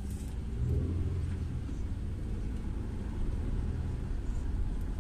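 Car engine and road rumble heard from inside the cabin as the car moves off through an intersection. The low rumble swells about a second in as it gathers speed.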